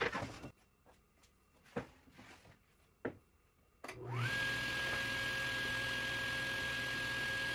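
A few light knocks as the board is set on the saw table, then about four seconds in a table saw is switched on: its motor spins up quickly to a steady whine and runs at speed with no load, before the rip cut begins.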